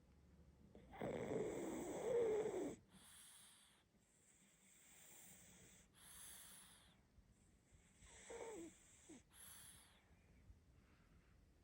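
Pug puppy snoring in its sleep. A long, loud inhale comes about a second in, followed by softer breaths in and out every second or two.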